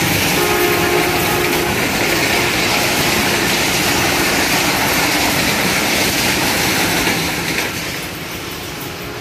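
Passenger coaches of an express train rushing past at about 106 km/h: a loud, steady noise of wheels on rails. The noise drops off about eight seconds in as the last coach goes by.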